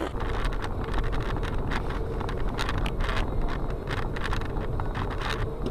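Steady road and engine rumble of a moving car with wind noise on the microphone, and many small clicks and knocks scattered through it.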